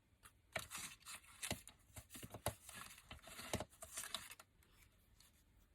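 Paper and card craft pieces being handled on a desk: a string of light clicks and short rustles over about four seconds.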